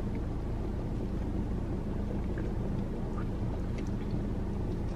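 Steady low rumble inside a car, with its engine running, and a few faint small ticks.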